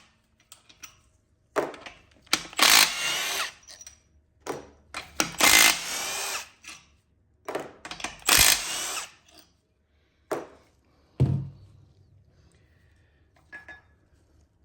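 A power tool spinning out the 18 mm bearing cap bolts on a GM 9.5-inch differential, in three bursts of a second or two each. Two short knocks follow about two-thirds of the way through.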